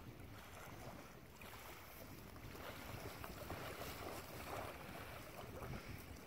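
Wind buffeting the microphone, with small waves lapping at a pebble lakeshore.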